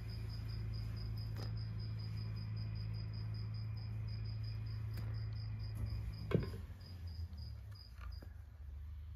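A cricket chirping in an even pulse of about four to five chirps a second, stopping shortly before the end, over a steady low hum. A few sharp knocks of a knife on a wooden cutting board come through, the loudest about six seconds in.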